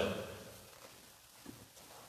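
A man's spoken voice ending, its echo dying away in the large church, then quiet room tone with one faint tap about one and a half seconds in.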